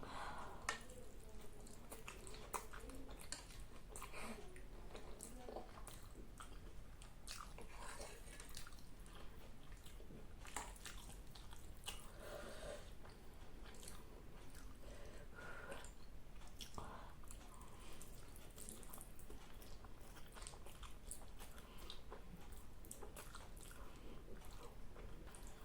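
Close-miked chewing and biting of spicy noodles, with irregular wet mouth clicks and smacks.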